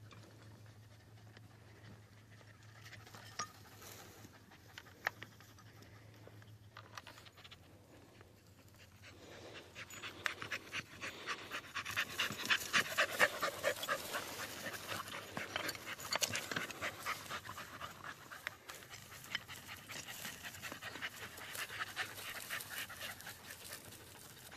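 A seven-month-old Brittany puppy panting rapidly in quick, even breaths. The panting is faint at first, grows loud about ten seconds in, and carries on steadily.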